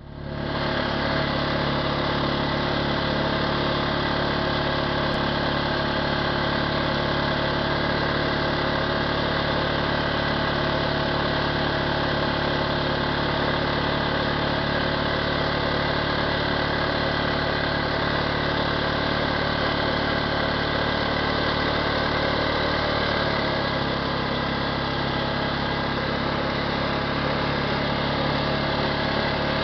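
An engine running steadily at an even pitch, its low hum changing slightly about 23 seconds in.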